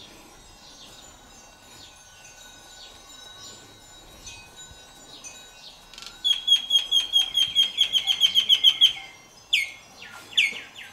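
Small bells on the stupa spires tinkling faintly in the breeze. About six seconds in, a bird gives a loud, fast trill of falling notes for about three seconds. Two single falling calls follow, then another quick trill near the end.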